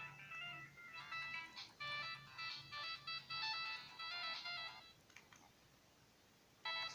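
A Samsung GT-E1200R ringtone playing on a Sagem my-E77 mobile phone: a tune of short electronic notes that stops about five seconds in. After a short pause, the next ringtone starts near the end.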